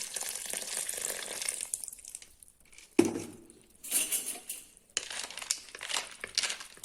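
Kitchen handling noises. A steady hiss fades out, a sharp knock comes about three seconds in, and after it come rustling and a run of small clicks and clinks, as of pots, ingredients and utensils being handled.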